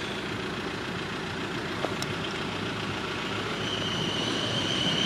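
South Western Railway Class 444 electric train approaching the level crossing: a rumble that grows steadily louder, with a steady high-pitched tone coming in near the end.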